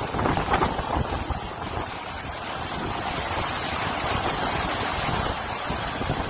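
Hurricane-force wind and driving rain rushing steadily, with gusts buffeting the microphone, heaviest in the first second or so.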